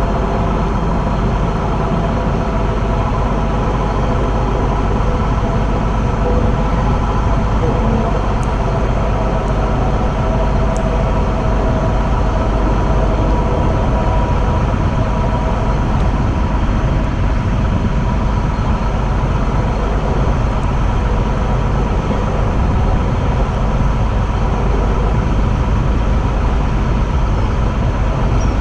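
Electric train running steadily along the line, heard from the driver's cab: a continuous rumble of wheels on rail and air noise, with several steady tones above it.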